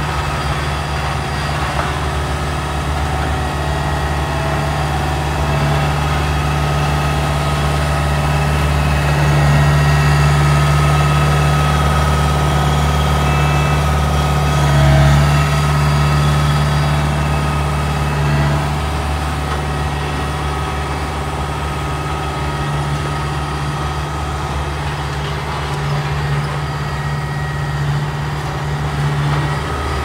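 Diesel engine of a Dynapac double-drum asphalt roller running steadily with a low drone as it works back and forth over fresh asphalt. It grows a little louder around the middle as the roller passes closest.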